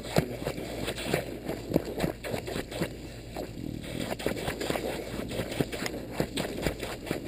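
Irregular muffled knocks, crackles and rustles close to the microphone: a bulldog puppy mouthing and nosing a toy in wet grass.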